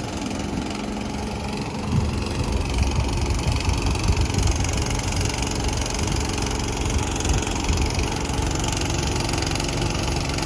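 An engine idling steadily, a low continuous rumble that grows slightly louder about two seconds in.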